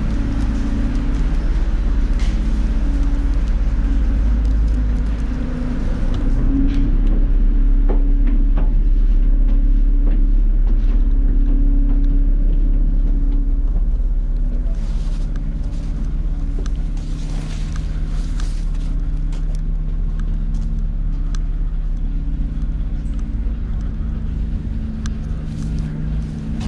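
Harbour passenger ferry's engines running steadily: a loud low rumble with a constant hum, heard from the open upper deck.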